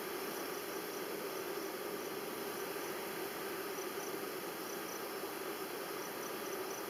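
Steady hum of a honeybee colony with the hive opened and frames out, bees in the air. Faint short high chirps come in small runs of two to four throughout.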